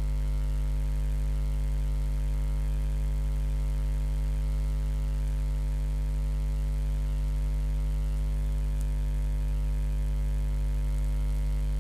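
Steady electrical mains hum: a low, unchanging buzz with a stack of steady overtones above it.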